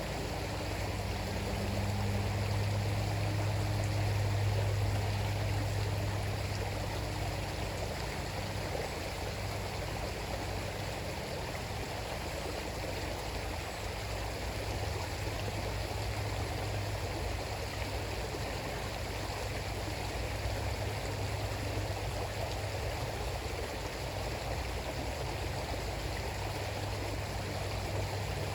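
River water flowing steadily over its bed, with a low rumble underneath that is strongest for the first several seconds.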